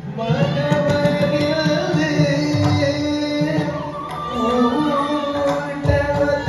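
Carnatic song sung by a solo vocalist with wavering, ornamented melody lines, accompanied by low drum beats, as music for a Bharatanatyam dance.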